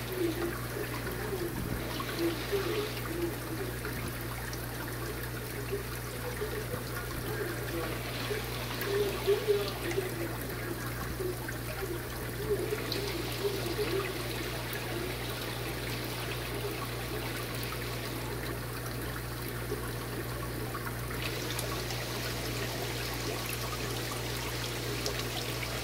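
Aquarium water trickling and bubbling steadily, with an irregular gurgle over a constant low hum from the tank's equipment.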